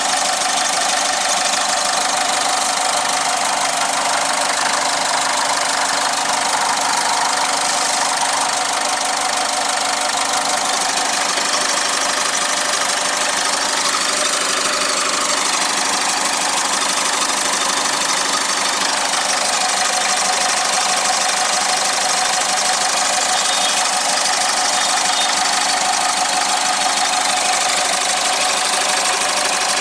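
Ford Figo's TDCi diesel engine idling steadily with its diesel clatter, heard close to the open oil filler neck.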